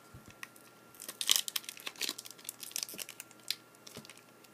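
Trading card pack wrapper crinkling and tearing as a pack is opened by hand, a run of sharp crackles starting about a second in.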